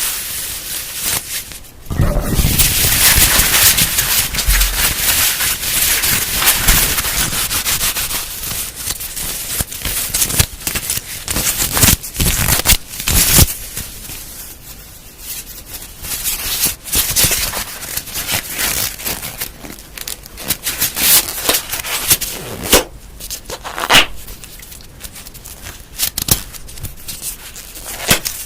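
Objects handled close to the microphone for ASMR: dense crackling and rubbing for the first half, then scattered sharp clicks and taps with softer rustling.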